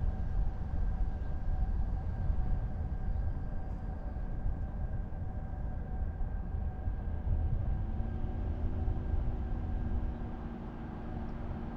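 Car driving on city streets: a steady low rumble of engine and road noise, with a pitched hum joining about eight seconds in.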